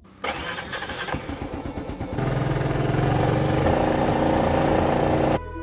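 Motorbike engine running while riding, with wind buffeting the microphone. It starts suddenly, sounds choppy at first, becomes louder and steadier about two seconds in, and cuts off abruptly near the end.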